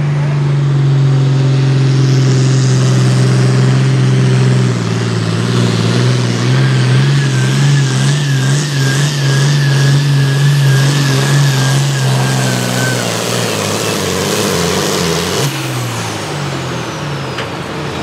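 John Deere pulling tractor's diesel engine running hard under load as it drags a weight-transfer sled, the note steady at first and then shifting and wavering. Around two-thirds of the way in the engine drops off at the end of the pull, and a high whine falls away as it winds down.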